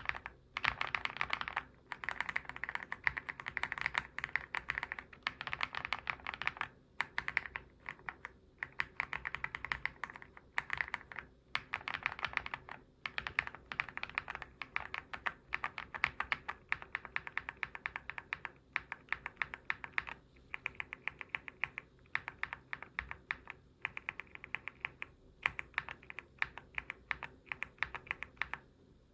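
Fast typing on an EPOMAKER GALAXY70 aluminium mechanical keyboard with HUANO Blossom Odyssey switches: rapid runs of key clacks broken by short pauses.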